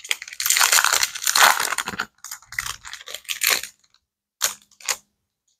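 Foil Disney Lorcana booster pack wrapper crinkling as it is torn open, followed by a run of shorter crinkles and two brief crackles about half a second apart near the end.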